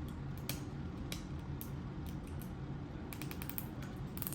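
Small plastic toy packaging being handled and peeled open: scattered light clicks and crackles, with a quick run of clicks near the end.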